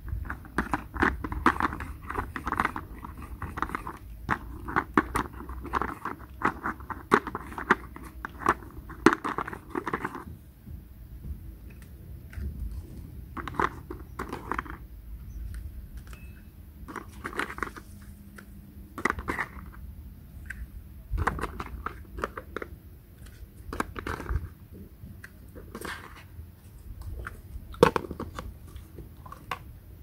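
Toy plastic pizza slices, pan and server being handled: rapid clicks and clatters of hard plastic, dense for the first ten seconds or so and then scattered, with a few sharper knocks.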